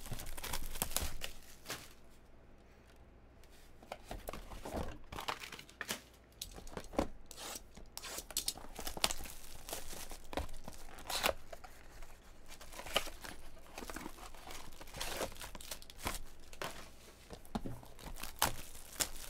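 Clear plastic shrink wrap being torn and peeled off a trading-card box, crinkling and crackling irregularly, with a quieter stretch about two seconds in.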